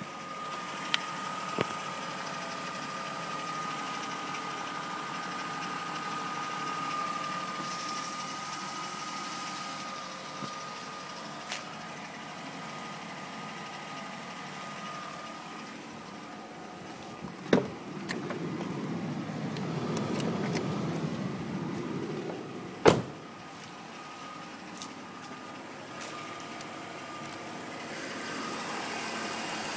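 BMW E39 520i's straight-six engine idling with a light clicking that the owner cannot trace. A few sharp knocks stand out, the loudest about 23 seconds in.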